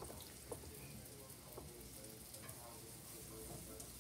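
Banana pancake sizzling faintly in a frying pan on the stove, with a light tap about half a second in.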